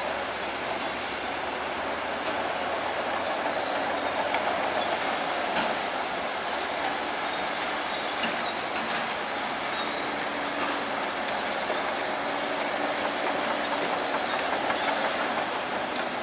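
Heavy earthmoving machinery, a bulldozer and dump trucks, running steadily with continuous diesel engine and machine noise.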